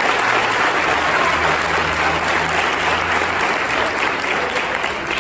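A church congregation applauding steadily, with low held notes faintly underneath.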